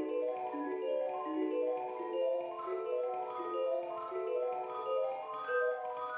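Background music: a light melody of short notes on a marimba-like mallet instrument, played in a steady run.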